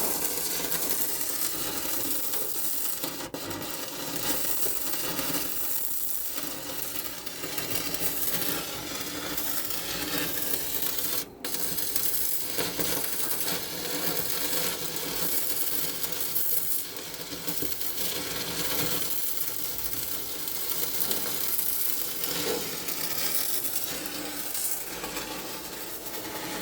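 Stick-welding arc crackling and sizzling steadily, cutting out briefly about eleven seconds in.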